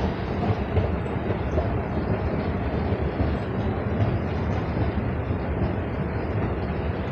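Escalator running while being ridden upward: a steady mechanical running noise from the moving steps and drive.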